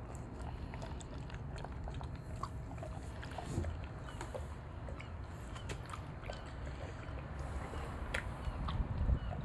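A German shepherd eating: irregular crunchy clicks of chewing.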